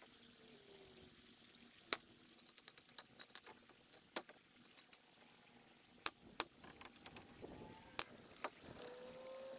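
Faint steady rush of a nearby creek, with about ten irregular sharp knocks of lumber and tools as rafters are set on a timber roof frame. The loudest knocks come about two seconds in and around six seconds in.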